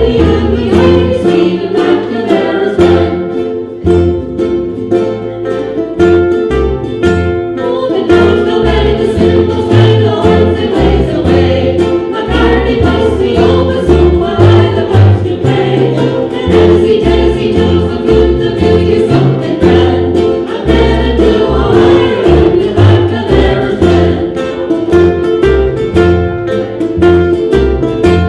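Ukulele ensemble with bass playing an Irish tune: several ukuleles strummed and picked together over a moving bass line, at a lively, even pulse.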